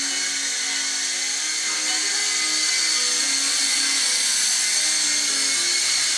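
A SYMA S032 radio-controlled toy helicopter in flight: its small electric motors and rotors make a steady high-pitched whine, which gets a little louder about two seconds in.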